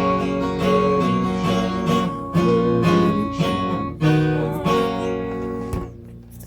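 Acoustic guitar strummed in a steady rhythm of chords, without singing; the playing stops about six seconds in as the piece comes to an end.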